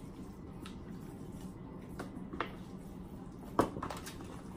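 Hands rubbing olive oil and seasoning into raw chicken pieces over an aluminium foil pan: soft wet squishing, with a few light clicks and taps, the sharpest about three and a half seconds in.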